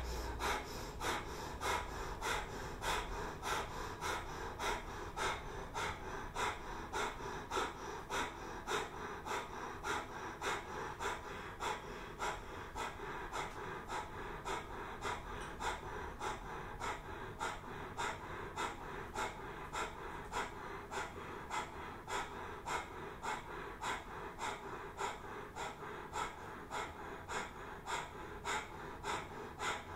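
Kundalini yoga breath of fire: a woman's rapid, sharp exhalations through the nose, each pumped from the navel, in an even rhythm of about two a second.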